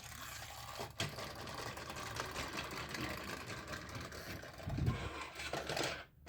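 Toy helicopter whirring with a rapid mechanical rattle as it is pushed along by hand, with a click about a second in.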